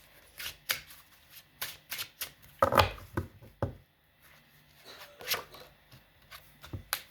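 Tarot cards being shuffled and handled: a run of quick, irregular card snaps and flicks, with a heavier slap about three seconds in.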